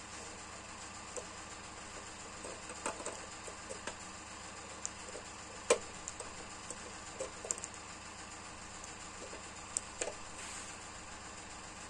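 Scattered small clicks and taps from a halogen headlight bulb being handled at a metal test box, over a steady faint hiss; the sharpest click comes about halfway through.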